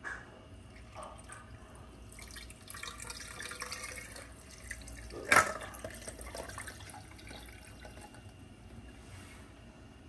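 Coffee poured from a thermal carafe over ice into a glass jar: a splashing trickle, with one sharp clink about five seconds in, then a fainter trickle as the pour eases off.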